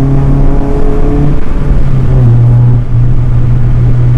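Tuned Honda Civic Si engine and exhaust heard from inside the cabin, loud, with a heavy low drone. It revs up, rising in pitch for about the first second and a half, breaks off briefly, dips once more about three seconds in, and then holds steady.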